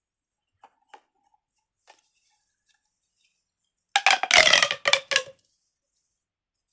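Pop tube fidget toys, ribbed plastic tubes, being stretched out: a few faint plastic clicks, then, about four seconds in, a loud rapid rasping run with a ringing edge lasting over a second.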